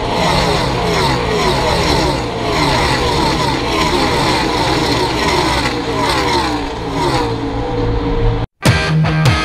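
A pack of NASCAR Cup stock cars with V8 engines racing past at speed, car after car, each engine note falling in pitch as it goes by. Near the end the sound cuts off abruptly and rock music with guitar takes over.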